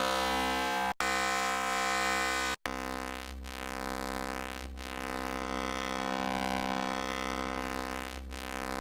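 Eurorack wavetable oscillator (1V/Oct The Centre) holding a steady, buzzy synth drone. It cuts out for a split second twice as new wavetables are selected, and the timbre changes each time; after the second switch the tone is duller, with a slow sweeping shimmer in the highs.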